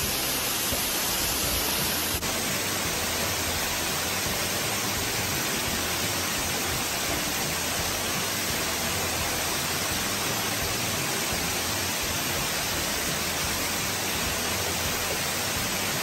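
Waterfall pouring down a cliff of columnar basalt: a steady, even rush of falling water.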